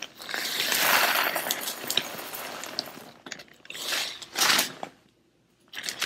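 Bird seed pouring from a seed bag into a clear plastic zipper bag: a rustling hiss of small seeds hitting the plastic along with crinkling of the bags, strongest about a second in. A second, shorter rustle of seed and plastic comes about four and a half seconds in, then the sound cuts off abruptly to silence for under a second.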